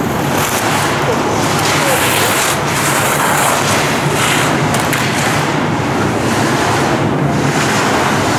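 Skis sliding and scraping on the hard snow of an indoor slope, over a steady rushing noise with a faint low hum behind it.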